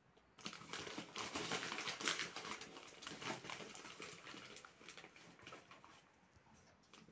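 White flour poured from a paper bag into a bowl of corn flour: a rustling, pattering hiss that starts about half a second in, is loudest over the next couple of seconds and then tapers off.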